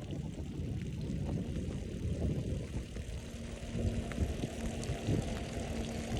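Wind rushing over the microphone while riding a bicycle: a steady low rumble, with a faint steady hum joining about three seconds in.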